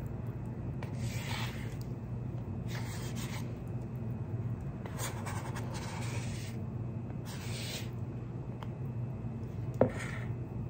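Rubber scraper rasping sticky sourdough dough off the sides of a plastic mixing bowl, in about six separate strokes, with a single knock near the end.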